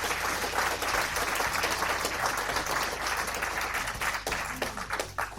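Applause: many hands clapping in a dense steady patter that thins and fades out near the end.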